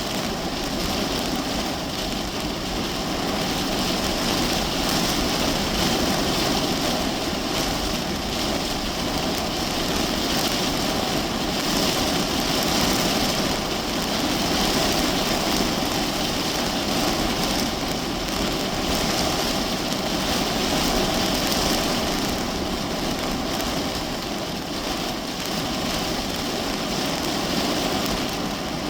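Heavy rain drumming steadily on the roof and windows of a parked car, heard from inside the cabin.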